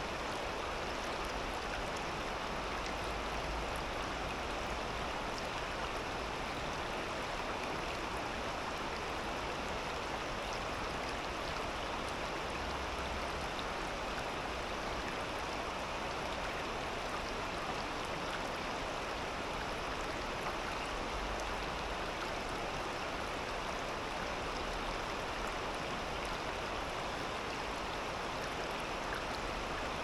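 Shallow river babbling steadily over stones and pebbles, a continuous rush of water through a rocky riffle.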